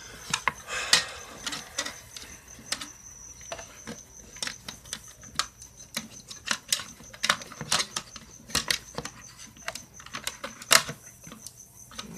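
Irregular clicks, taps and clatter of small plastic and metal parts being handled: an Xbox 360 hard drive casing worked on with a screwdriver, with a faint steady high whine underneath.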